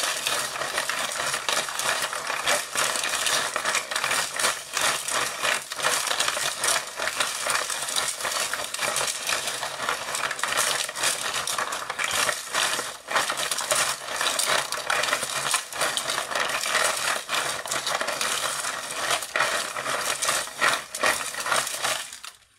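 Tyco Doctor Dreadful Ice Scream Machine being hand-cranked: its plastic crank mechanism turns the drum with a continuous clicking rattle as the ice cream mixture freezes onto the drum in layers. The rattling stops just before the end.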